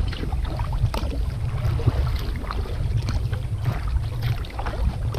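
Sea kayak paddled across calm water: irregular splashes and trickles of water from the paddle strokes, over a steady low rumble.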